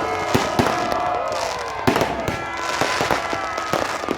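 Many fireworks going off at once, sharp bangs and pops at irregular spacing over a continuous crackle.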